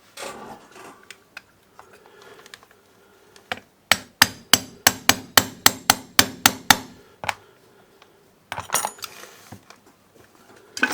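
Hammer tapping in a quick run of about a dozen sharp strikes, knocking the two-stroke brushcutter's crankcase and new crankshaft bearing together where the fit is too tight to go by hand. Quieter handling clatter of the metal parts comes before and after the strikes.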